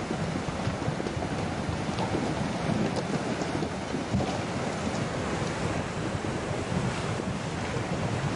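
Tsunami floodwater rushing in a steady wash through debris and fishing floats, mixed with wind buffeting the microphone.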